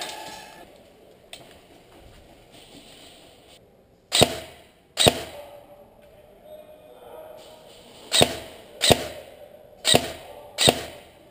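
Airsoft gun firing six sharp single shots in quick pairs, the first pair about four seconds in and the rest near the end.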